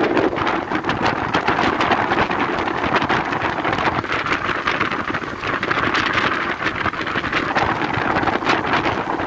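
Strong wind buffeting the microphone on a fast-moving passenger train, over the train's running noise.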